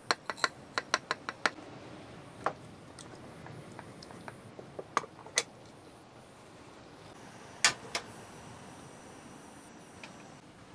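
A run of sharp clicks and knocks: about seven in quick succession in the first second and a half, then scattered single ones, with a louder pair near the end.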